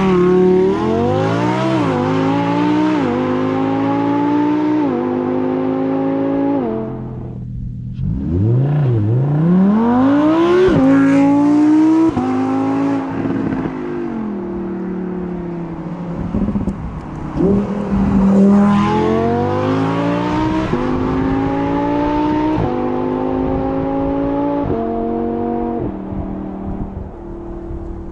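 Lamborghini Huracán EVO's 5.2-litre naturally aspirated V10 at full-throttle acceleration, its exhaust note climbing and dropping back with each quick upshift. It makes two runs: the first eases off about seven seconds in, the revs rise and fall, and a second run of upshifts follows from about twenty seconds.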